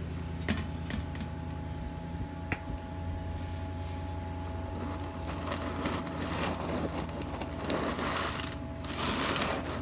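A steady low mechanical hum with a faint held whine above it, broken by a few light clicks and, in the second half, short stretches of hiss.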